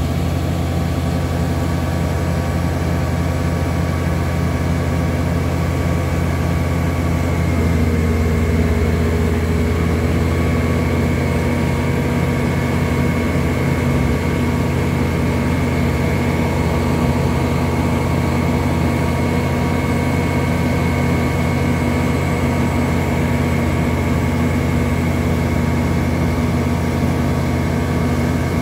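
Western Star hydro-excavation vacuum truck running at work: its heavy diesel engine and vacuum system make a loud, steady drone. The pitch shifts up slightly about seven and a half seconds in.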